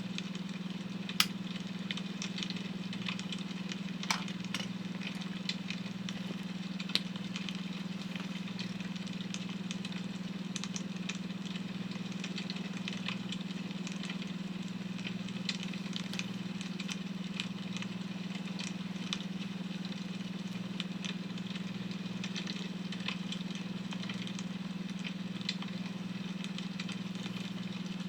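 Wood fire crackling, with irregular sharp pops, the loudest about a second and four seconds in, over a steady low hum from a beta-wave tone.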